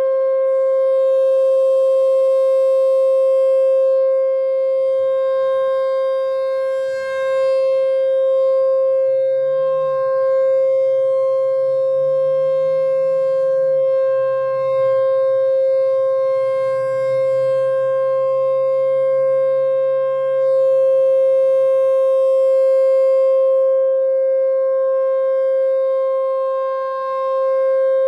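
Whelen Vortex R4 electronic tornado siren sounding a steady single-tone alert, its level dipping briefly a few times. The siren's speaker drivers are thought to be failing and in need of replacement.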